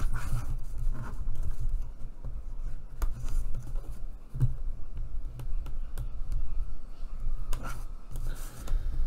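Kraft cardstock pieces being handled and rubbed with a plastic folding tool on a cutting mat: soft brushing and scraping with a few light taps, over a steady low hum.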